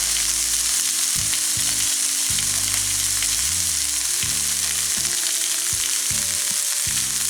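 Chopped peppers and onion frying in hot olive oil in a pan: a loud, steady sizzle.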